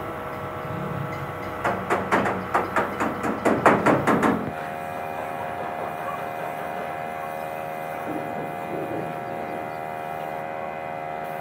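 Hammer blows on metal: a quick run of about a dozen strikes, roughly four or five a second, over a steady hum.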